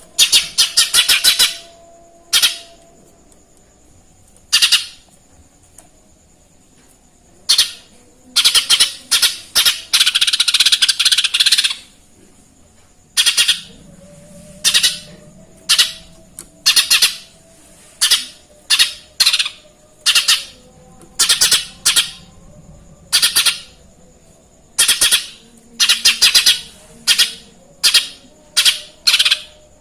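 Cucak ijo mini leafbird singing loud runs of short, harsh chirps, mimicking Eurasian tree sparrow (burung gereja) calls. The calls come in quick clusters, with two longer, denser runs and short pauses between bursts.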